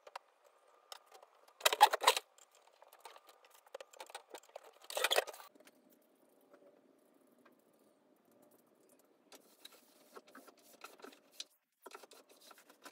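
Clothes and bags rustling as they are handled and moved about on wardrobe shelves, with two louder rustles about two and five seconds in and light knocks and clicks between them.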